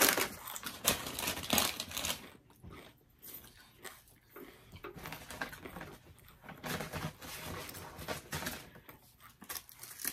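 A paper takeout bag rustling and crinkling as it is rummaged through: irregular crackles and scrapes that come and go.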